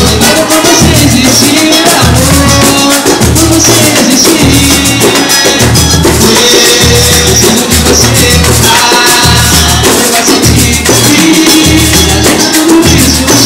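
Loud pagode music from a band: a steady pulsing bass line under shaker and tambourine-type percussion, with singing over it.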